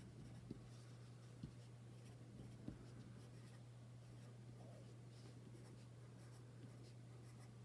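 Faint scratching of a coloured pencil on paper as it shades and draws scales, with a few light ticks in the first few seconds over a steady low hum.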